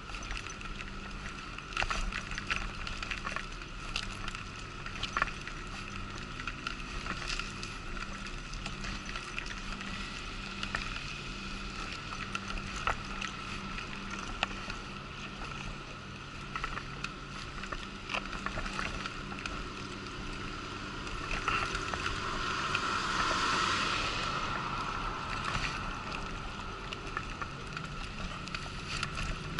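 Wheelchair rolling over paving stones, with a steady whine and scattered clicks and rattles from the bumps. About two-thirds of the way through, a rush of noise swells and fades over a few seconds.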